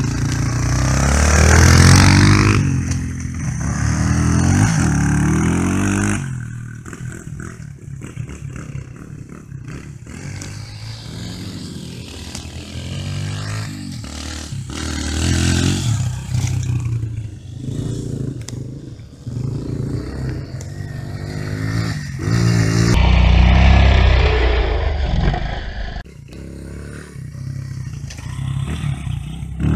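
Dirt bike engine revving up and down as it is ridden, loud close by at the start and again about three-quarters through, fainter in between while the bike is farther off.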